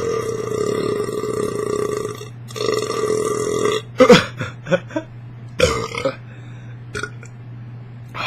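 A man's very long, insane burp from gulping carbonated Diet Coke. It is a loud, drawn-out belch that breaks briefly about two seconds in, resumes, and stops about four seconds in. A few short, sharp sounds follow.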